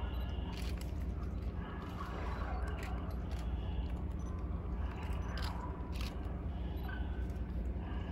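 Steady low outdoor rumble of wind and distant traffic, with scattered small clicks and rustles from the phone being handled.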